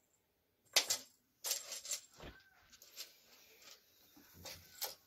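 A cat shoving shoes about in a pile on a wooden floor: a run of scrapes, rustles and light knocks as the shoes shift, the loudest knock about a second in.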